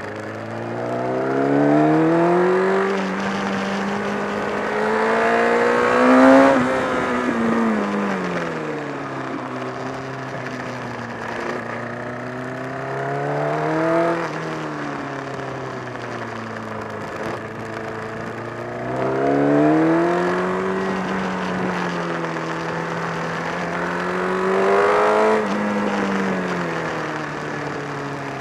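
Honda CBR1000RR's inline-four engine running under load, its revs rising and falling several times, with the loudest peak about six seconds in. The owner reports a growing flapping (batabata) noise from near the engine along with a loss of torque.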